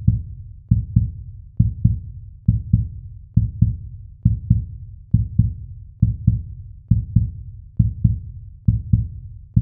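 Intro sound effect of deep double thumps, like a slow heartbeat, repeating evenly about once every 0.9 seconds, each pair fading away before the next.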